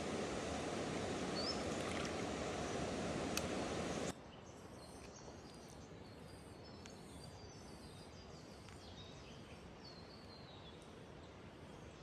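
Steady rushing outdoor noise that cuts off abruptly about four seconds in, leaving a quieter outdoor background with birds chirping and a faint high pulsing call repeating about twice a second.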